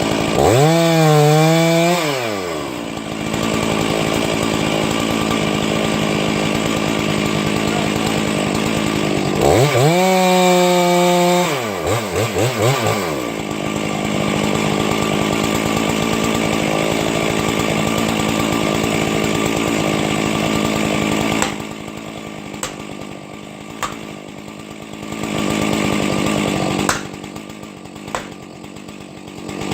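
Two-stroke chainsaw cutting a Douglas fir during felling. It revs up and back down twice, runs steadily in between, then drops lower about two-thirds through, when several sharp knocks are heard.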